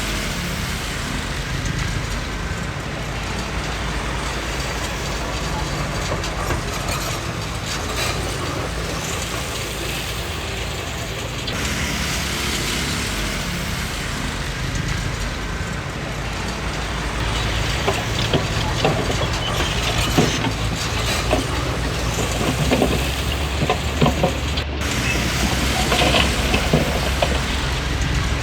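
Komatsu D20P crawler bulldozer's diesel engine running steadily under work, with rattling and clanking from its steel tracks and undercarriage; the sharp clanks come more often in the second half.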